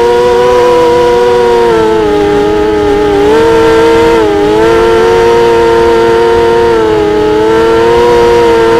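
ImmersionRC Vortex racing quadcopter's brushless motors and Gemfan 5x4 propellers whining loudly, heard close up from the quad's onboard camera. The pitch dips and climbs back a few times as the throttle changes in flight.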